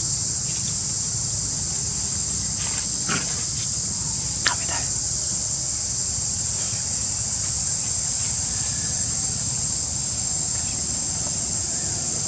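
Steady high-pitched drone of insects, with a single sharp click about four and a half seconds in.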